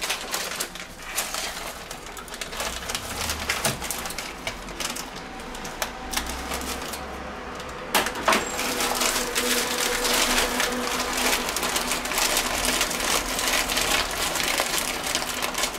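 Frozen green beans sizzling and crackling in hot clarified butter in a frying pan. From about halfway through, a plastic freezer bag rustles, and near the end frozen Brussels sprouts tumble into the pan.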